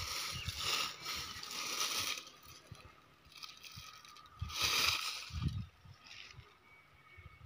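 Footsteps crunching and rustling through dry crop straw and stubble, loudest over the first two seconds and again briefly about five seconds in.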